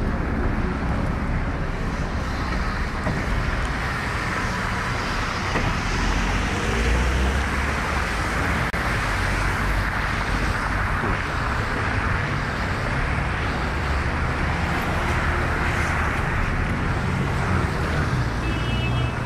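Steady street traffic: cars driving on rain-wet roads, their tyres hissing on the wet tarmac over a low rumble of engines.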